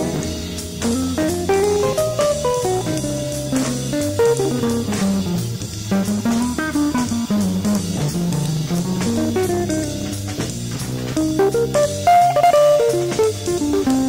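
Instrumental band music: a guitar playing quick melodic runs that climb and fall, over bass guitar and a drum kit.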